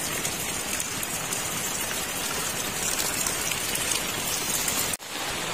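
Heavy rain falling steadily, a dense even hiss of rain on surfaces, with a brief dropout near the end.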